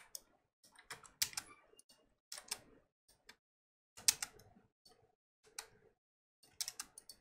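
Clicks of a computer mouse and keyboard, in short clusters of a few clicks each, about one cluster a second.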